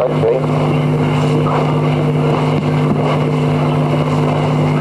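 A steady mechanical hum that holds one unchanging pitch with several even overtones, over a constant hiss.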